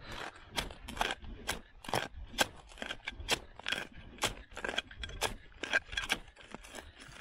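Steel shovel blade being driven into stony gravel ground with the foot, scraping and clinking against the stones in a run of short strokes, about two a second. The gravel keeps the blade from going in easily.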